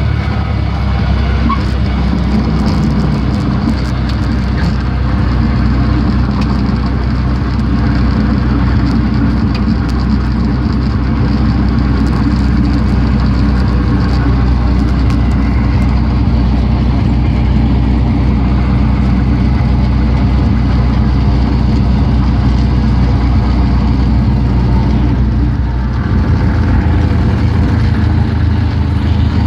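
Cessna 172's piston engine and propeller running steadily, with a brief dip and a slight change in engine note near the end.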